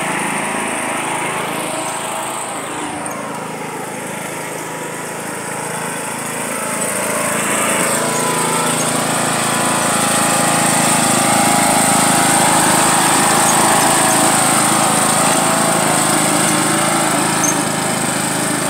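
John Deere riding lawn mower's engine running steadily, getting clearly louder about halfway through as the mower comes closer.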